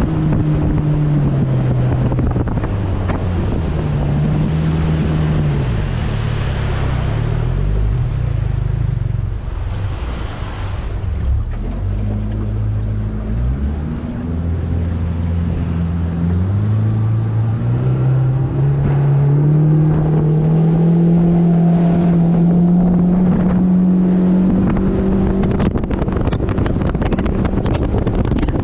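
Mercury 80 Jet outboard on a jet boat running under way, its engine note wavering, then dropping as it throttles back about halfway through, then climbing steadily as it speeds up again. Wind on the microphone and water rush run underneath.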